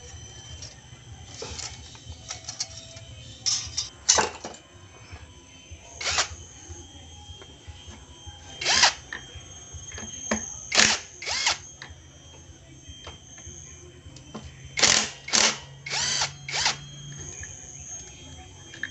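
Cordless drill with a socket spinning out the bolts of a Yamaha Vega ZR engine's side cover, in about a dozen short bursts of its motor, some coming in quick pairs.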